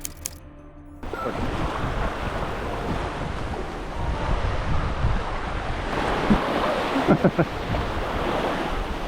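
Waves washing in, with wind buffeting the microphone, starting abruptly about a second in.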